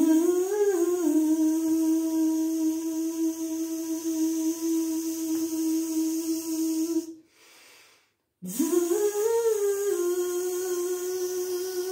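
A man's voice sustaining a buzzing 'zzz' on pitch as a breath-support exercise, a slow, steady outflow of breath. Each note slides up, steps briefly higher and back, then holds steady for several seconds; the first ends about seven seconds in and the second starts a second later.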